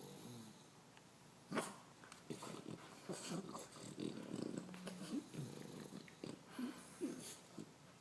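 A pet snoring: irregular rasping breaths and snorts, with one sharp, louder snort about one and a half seconds in.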